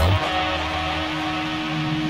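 Background music: a heavy electronic track breaks off right at the start, leaving a held guitar-like tone and soft sustained chords.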